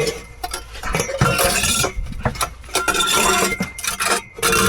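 Metal parts and tools clinking and clanking against each other in a run of irregular sharp knocks, as car exhaust parts are handled during the repair.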